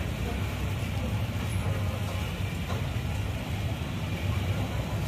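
Steady low rumble of motor traffic and engines.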